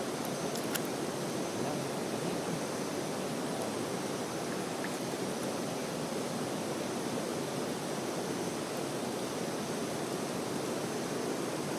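Steady rush of flowing water, an even noise with no changes, a few faint ticks near the start.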